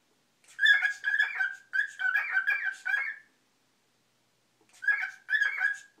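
Cockatiel chattering to its reflection in a mirror: a run of short, quick notes lasting about three seconds, a pause, then a shorter run near the end.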